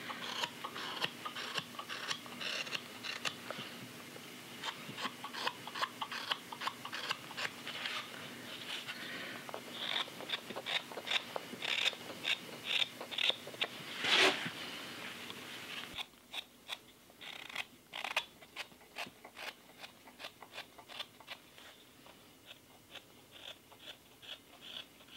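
Carving knives slicing green wood: a straight knife and then a hook knife cutting inside a wooden cup's bowl. It is a run of short, irregular shaving strokes, a little quieter from about two-thirds of the way through.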